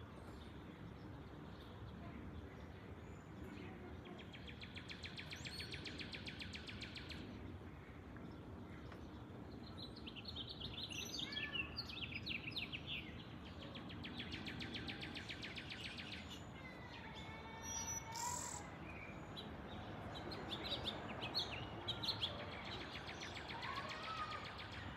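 Songbirds singing: several rapid trills of a couple of seconds each and scattered chirps, over a low steady rumble.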